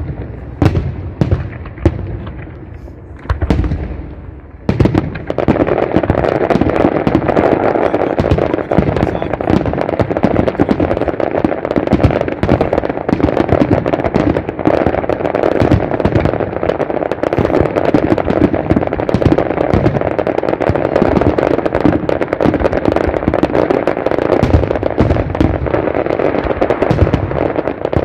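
Fireworks display: a few separate shell bursts bang in the first seconds. From about five seconds in they give way to a dense, continuous barrage of bangs and crackling from many shells and crackle stars going off at once.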